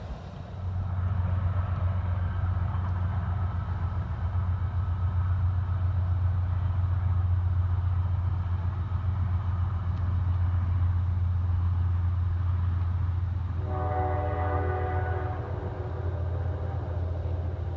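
A distant train running along the far shore of the river: a steady low rumble, with its horn sounding one blast of about two seconds about fourteen seconds in.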